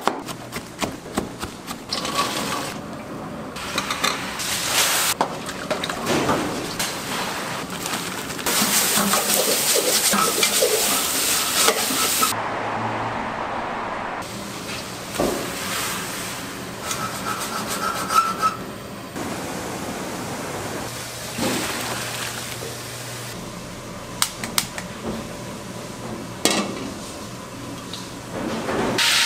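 Commercial kitchen work sounds in quick succession: a knife chopping onion on a plastic cutting board with rapid clicks, the clatter of pots, pans and utensils, and oil poured into a wok near the end.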